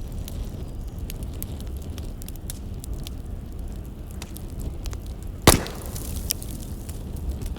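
Firewood burning and crackling, with scattered small snaps and one loud sharp pop about five and a half seconds in, over a steady low rumble.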